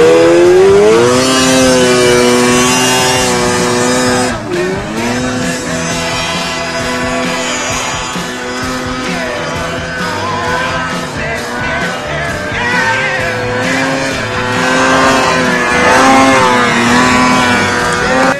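Snowmobile engine revving hard under load in deep powder: the pitch climbs at the start, drops briefly about four and a half seconds in as the throttle eases, then holds high and wavers as the rider works the sled. Background music plays underneath.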